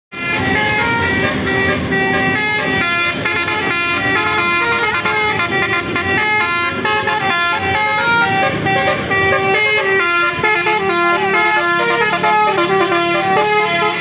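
Basuri telolet bus horn playing a fast melody, its notes stepping up and down in pitch several times a second.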